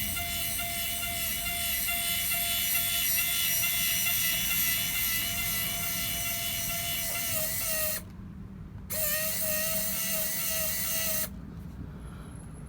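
Small electric motor of a robot tow truck running with a steady whine, stopping abruptly about eight seconds in, starting again a second later and cutting off about three seconds after that.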